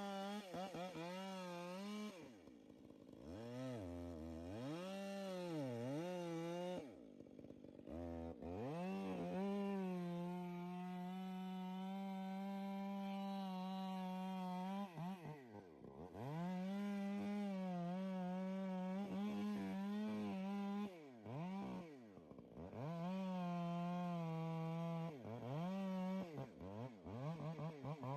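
Chainsaw running at high revs, its pitch dipping sharply and climbing back again several times through the stretch.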